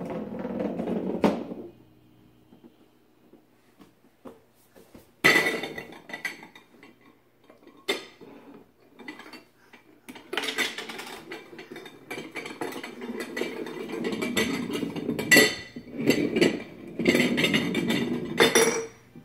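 Glass jars and their metal lids knocking, rolling and clinking on a hardwood floor as a baby handles them. There is a short bout of clatter at the start and a sharp knock about five seconds in, then nearly continuous rattling from about ten seconds to the end.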